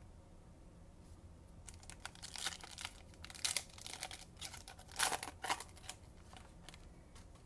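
A baseball-card pack's wrapper being torn open and crinkled by hand: crackling and tearing starting about two seconds in, loudest about five seconds in.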